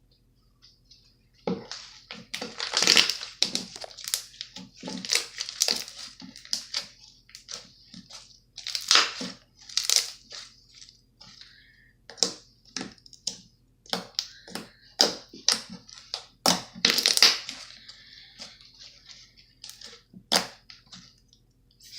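Slime being squeezed and pressed, giving a quick irregular run of crackling, popping squishes that starts about a second and a half in.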